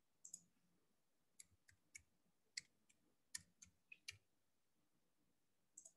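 Faint computer keyboard keystrokes: about nine separate taps over two to three seconds as a short word is typed. A couple of lone clicks fall near the start and near the end.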